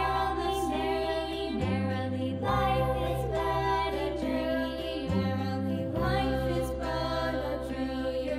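Background music: a sung melody over slow, held bass notes.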